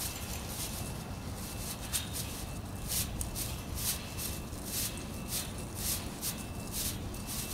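Strands of plastic artificial hedge rustling and scraping against chain-link wire as they are pushed through the fence diamonds, in short swishes about once or twice a second.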